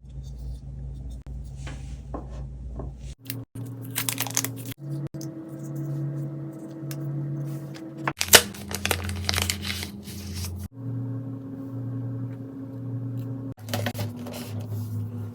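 Product packaging being handled: rustling, crinkling and tearing of wrap with occasional clicks, in short clips joined by abrupt cuts over a steady low hum.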